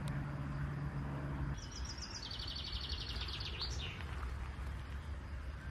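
A bird chirps in a fast, even trill for about two seconds, over a low, steady rumble. A steady low hum cuts off sharply about a second and a half in.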